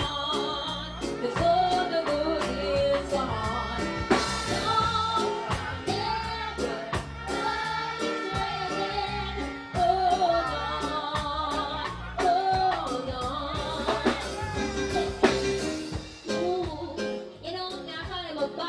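A child singing into a microphone over a backing rhythm with a steady drum beat and deep bass, amplified through a stage sound system.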